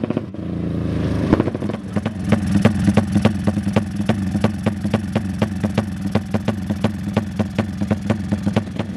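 Racing motorcycle with an open exhaust running: a short rev in the first second or two, then a loping idle with sharp, evenly spaced exhaust beats about four or five a second.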